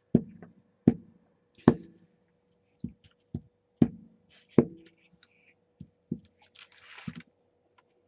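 Hands patting and pressing torn paper down onto a paper tag on a tabletop: about ten separate dull taps at uneven intervals, with a short paper rustle near the end.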